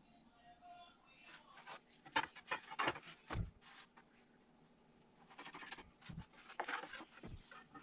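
Wooden boards being handled and fitted: irregular scraping and rubbing with scattered knocks, and three dull thuds.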